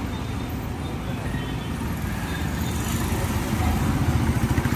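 Road traffic noise with a motor engine running close by. Its low, pulsing throb grows stronger near the end.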